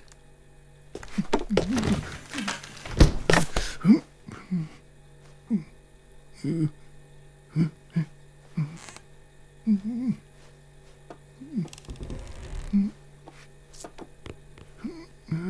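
A man's short, nervous wordless whimpers and murmurs, roughly one a second, over a steady low hum. A few clattering knocks come in the first few seconds as a broom is snatched up.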